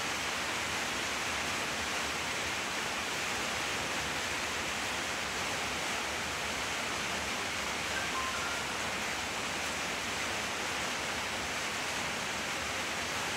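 A steady, even hiss, like static or rushing air or water, that does not change; any crunching of the kibble is buried under it.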